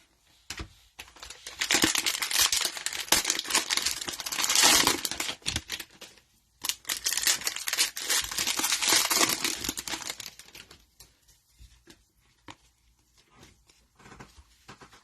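Cellophane wrapper of a trading card cello pack being torn open and crinkled, in two long stretches of crackling, followed by a few light clicks.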